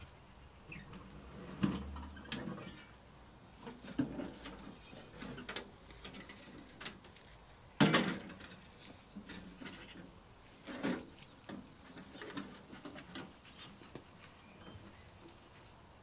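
Spade digging into a pile of woodchip and tipping the loads into a wheelbarrow: irregular scrapes, rustles and knocks, with a louder thump about eight seconds in.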